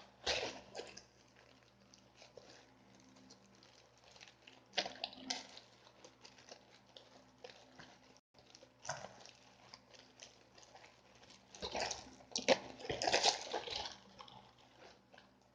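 A delivered parcel being opened by hand: its packaging rustling, crinkling and tearing in irregular bursts, busiest from about twelve to fourteen seconds in.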